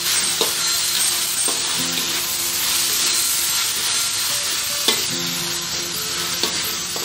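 Sliced onions and chicken sizzling in a hot wok as a metal spatula stirs and scrapes them, with a few sharp clicks of the spatula against the wok.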